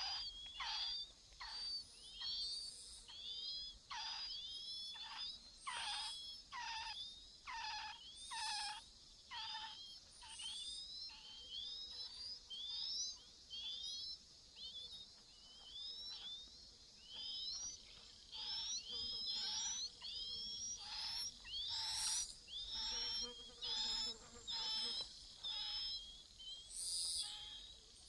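Chinese hwamei nestlings begging while being fed: short, high calls that sweep steeply down in pitch, repeated a little more than once a second without a break.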